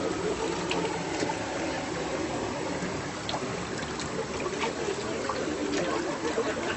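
River water flowing and trickling steadily, with scattered small clicks through it.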